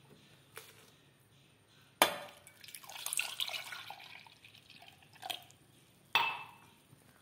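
Milk poured into a stainless-steel mixer jar, splashing over the fruit for about three seconds. A sharp knock comes just before the pour and another near the end.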